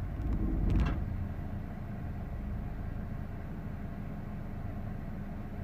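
2004 Honda Accord engine idling at a stop with the air conditioning switched on, the rough idle that only shows with the A/C or defroster running. A short louder stretch with a couple of faint clicks comes within the first second, then a steady low hum.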